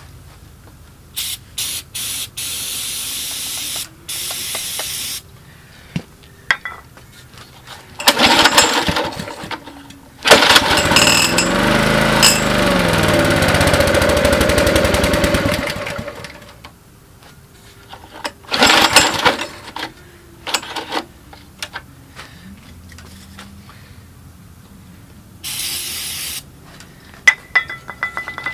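Honda EG1400X generator being cold-started on starting fluid: first a few short hisses of aerosol spray, then recoil-starter pulls. About ten seconds in the engine catches and runs for some five seconds, its speed rising and falling, then dies away, followed by further pulls.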